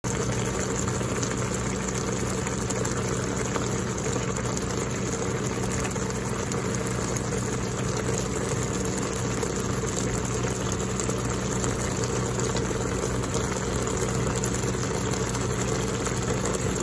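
Sliced beef and napa cabbage simmering in sauce in a frying pan, bubbling steadily, with a steady low hum underneath.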